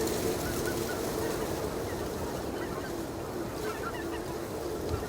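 Greater white-fronted geese calling: short, high, yelping calls, faint and scattered, with a cluster of them past the middle. Under the calls runs a steady low hum.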